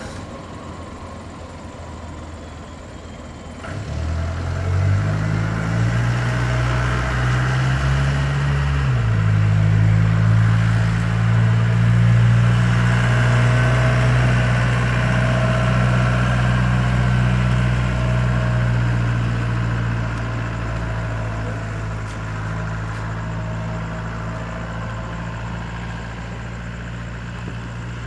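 Boeing 767-300F freighter's jet engines as it taxis past: a low engine hum with a rushing jet noise on top builds up about four seconds in, shifts in pitch for a few seconds, then holds steady and slowly fades as the aircraft moves away.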